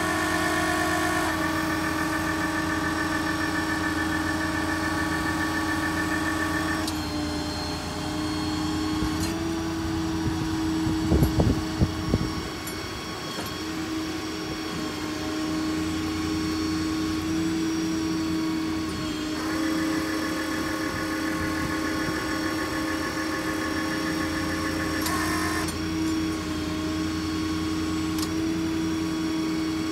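Ford 6.7 diesel idling steadily while driving the hydraulics of a Maintainer 3216 crane. Twice, for about six seconds each, a higher hydraulic whine comes in as the boom is raised and extended. There are a few loud sharp knocks a little over a third of the way in.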